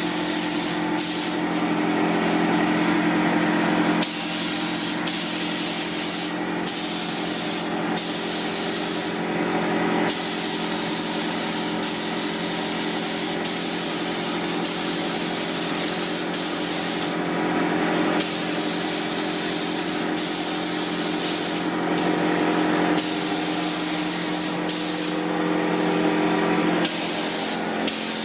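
Paint spray gun hissing steadily as it sprays the bumper, with a steady hum underneath. The hiss thins out briefly every few seconds between passes.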